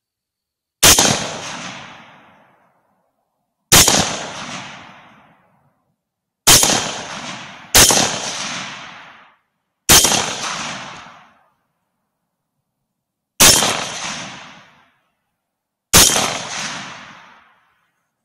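Seven rifle shots from a 6.5 Grendel, fired at uneven intervals, two of them close together about seven seconds in. Each sharp crack is followed by an echo that dies away over about a second and a half.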